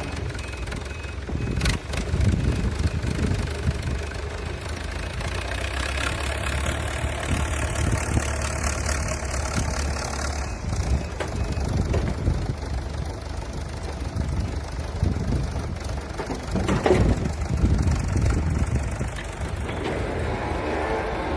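Diesel engine of heavy construction machinery running steadily, with a couple of sharp knocks or clanks.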